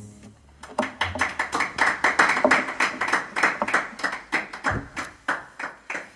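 Hands clapping in applause, about four claps a second, thinning out and fading near the end. There is a low thump about four and a half seconds in.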